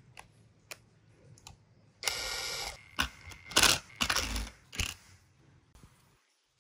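A DCA cordless impact driver runs for under a second, spinning a bolt on the motor's end cover. Several sharp knocks follow.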